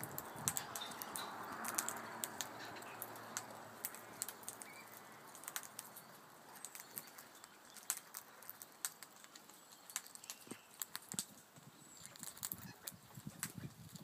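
Australian king-parrots pecking and cracking seed on a wooden railing: a run of sharp, irregular clicks and taps from beaks on seed husks and wood. Soft bird calls fade out over the first few seconds.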